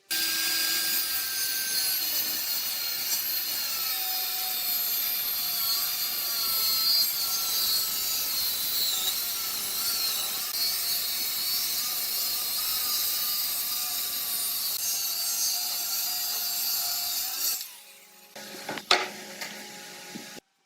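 Power tool working wood: a steady, hissing grind with a faint wavering whine from the tool that stops about three-quarters of the way through, followed by a single sharp click.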